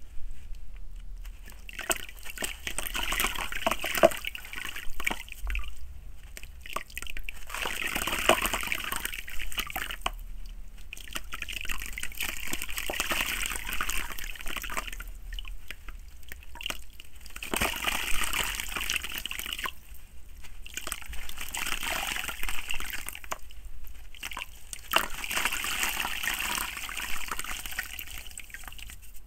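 A gritty soil block crumbled by hand, its grains and clumps sprinkling and splashing into a basin of water, and hands swishing the loosened soil through the muddy water. It comes in spells of a few seconds with short pauses between.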